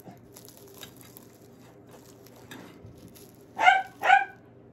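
A dog barking twice in quick succession near the end, short high yaps, with faint crackling of a flaky croissant being torn apart before them.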